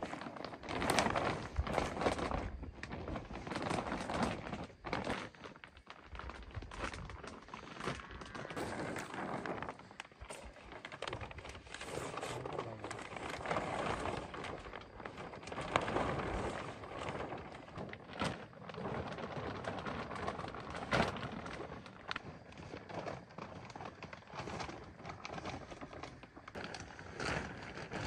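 Large sheets of clear plastic sheeting rustling and crackling in irregular swelling bursts as they are pulled and spread over a shelter frame, with occasional sharp clicks and knocks.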